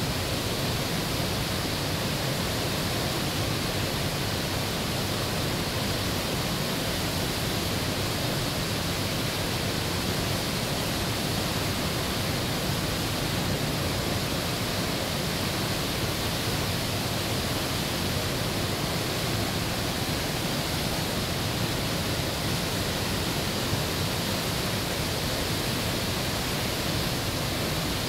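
Great Falls of the Potomac River: whitewater rapids pouring over rock ledges, a steady, unbroken rush of water.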